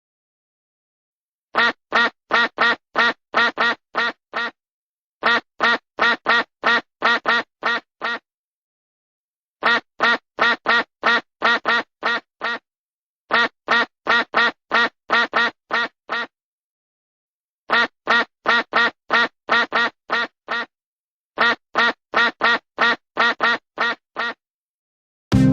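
Duck quacking: six runs of about eight quick quacks each, roughly three a second, with pauses of a second or so of silence between the runs.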